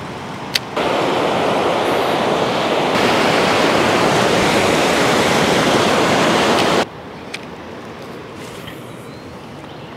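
A loud, steady rushing hiss starts suddenly about a second in, grows louder near three seconds and cuts off abruptly near seven seconds, leaving a quieter rushing background. A few sharp clicks sound over it.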